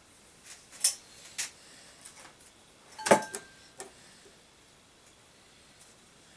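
A few light clicks and taps, then one louder short metallic clink with a brief ring about three seconds in: a small metal bowl being handled as folded paper name slips are emptied out of it.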